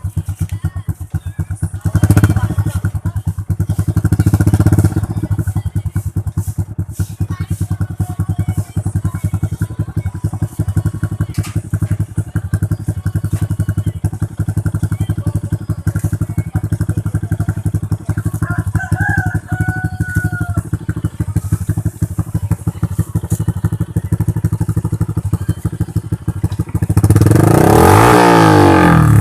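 Honda XRM 125's single-cylinder four-stroke engine idling through an aftermarket Daeng muffler pipe. It gives two short throttle blips about two and four seconds in, and a longer rev near the end that rises and falls.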